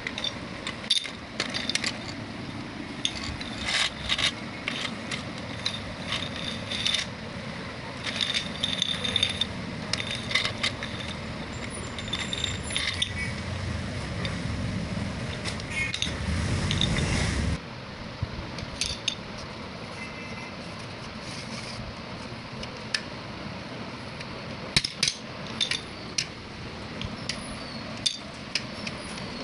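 Plastic domino tiles from a toy domino train set clicking and clattering against each other and a hard tabletop as they are handled. A steady low hum builds for a few seconds past the middle and cuts off suddenly.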